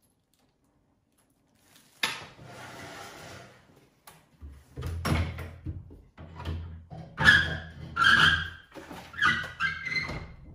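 Curtain hardware being handled and fitted: after a silent start, a sharp scrape about two seconds in, then a run of scrapes and metallic clinks over a low hum, loudest about two-thirds of the way through.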